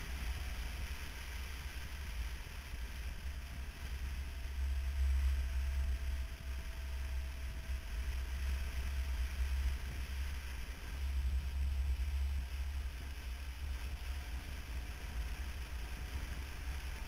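Wind rumbling on the microphone of a moving motorcycle, swelling and easing, with the motorcycle running underneath.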